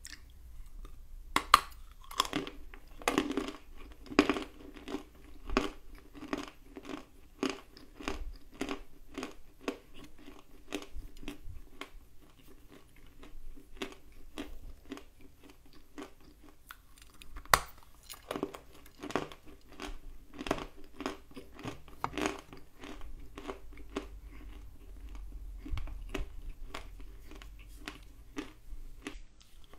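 Close-up chewing of dry edible clay: a few sharp crunching bites, then steady chewing with many small crackles.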